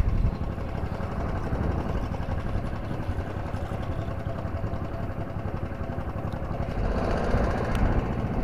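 A small wooden fishing boat's engine running steadily with a low hum, growing a little louder about seven seconds in.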